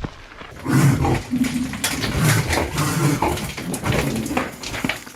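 An animal's rough, noisy vocal bursts, one after another, starting about a second in.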